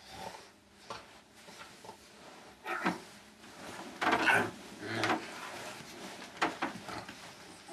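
Scattered knocks, bumps and rustles of people moving about a small room and settling onto a couch, several separate short noises, the loudest about four seconds in.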